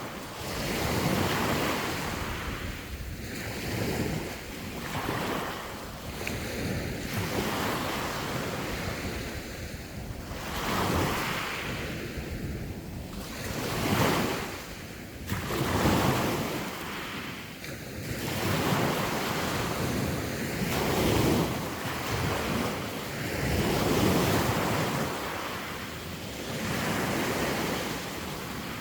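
Sea waves breaking and washing on the shore, the surf rising and falling in repeated swells every few seconds, with wind buffeting the microphone.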